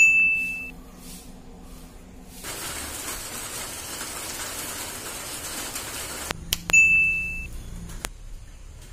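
Two bright metallic dings, each a sharp strike ringing clearly for under a second, one at the start and one about six and a half seconds in. A steady hiss fills the gap between them, and there is a further click shortly after the second ding.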